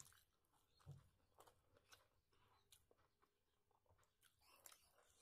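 Faint chewing by a person eating by hand, with scattered soft, wet mouth clicks and a slightly stronger bite at the start and about a second in.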